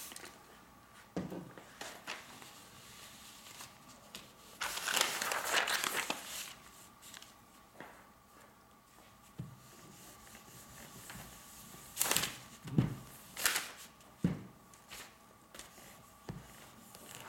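Paper rustling and crinkling as a sheet of silicone release paper is laid down and handled, with one long rustle about five seconds in. Later come a few short rustles and knocks as a household iron is set on and pressed over the paper.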